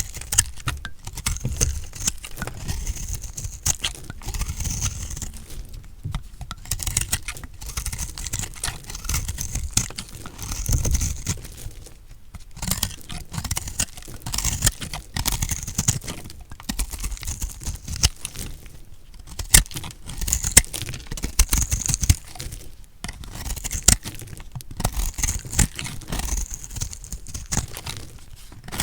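A knife cutting through a block of dry recycled soap: dense, crunchy crackling, in several long runs with short pauses between them.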